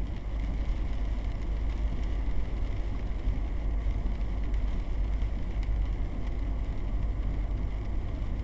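Steady rumble and hiss of a car driving on a rain-soaked road, heard from inside the cabin: tyre and road noise on wet pavement.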